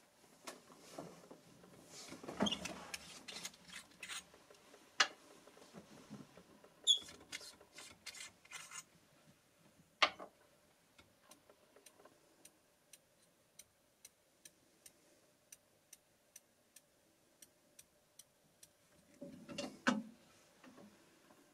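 Faint handling of a scoped rifle, then a slow, even run of small clicks, about one and a half a second, as the riflescope's elevation and windage turrets are turned to correct the zero. A single sharper knock comes about ten seconds in, and a brief rustle near the end.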